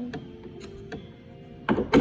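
Pieces of a wooden birdhouse kit being handled: a few light clicks, then a louder clatter of wood knocking near the end.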